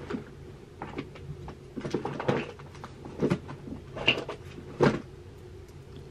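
About half a dozen short knocks and clatters of small objects being handled, coming irregularly, the loudest about four to five seconds in.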